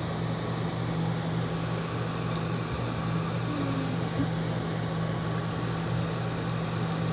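Steady low hum of a machine or appliance, unchanging throughout.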